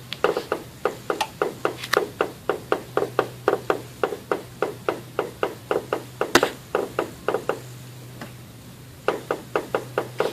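Newly installed KYB strut assemblies on a 2004 Cadillac DeVille clicking with each slight compression of the suspension, the clicks carried and amplified through the strut towers. Sharp clicks follow in quick succession, several a second, pause briefly about eight seconds in, then start again, over a low steady hum.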